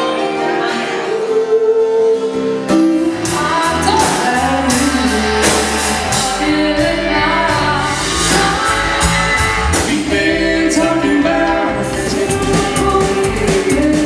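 A band playing with singing. Drums and cymbal strikes and a bass line come in about three seconds in.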